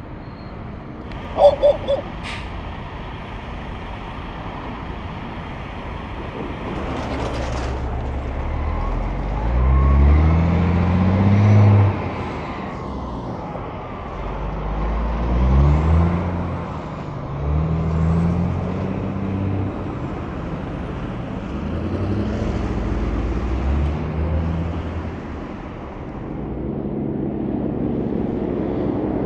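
Diesel semi-trucks running on the highway, the engine note climbing and then dropping several times, loudest about ten to twelve seconds in. A few sharp clicks come early, about a second and a half in.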